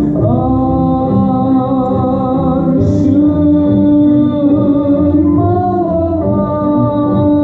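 Stage music with a voice singing long held notes that waver slightly, changing pitch every second or two over the accompaniment.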